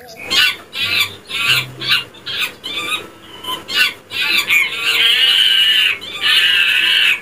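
Chimpanzee calls: a quick series of short cries that builds into two long, high screams in the second half.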